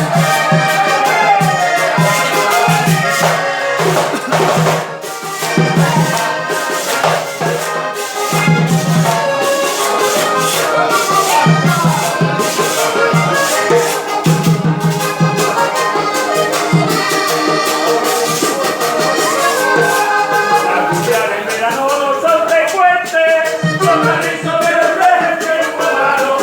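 Music with a steady beat of rhythmic percussion and a melody running over it.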